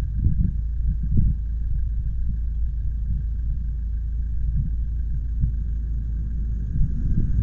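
Low, uneven rumble of riding noise, wind and road, on the microphone, with a faint steady high whine.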